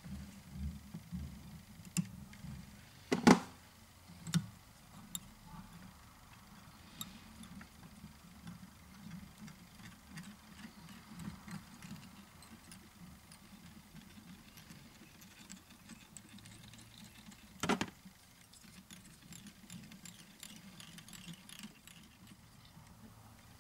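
Faint handling sounds of fly tying at a vise: scattered small clicks and rustles of fingers working thread and fibres onto the hook, over a low steady hum. Two sharper clicks stand out, a few seconds in and again past the middle.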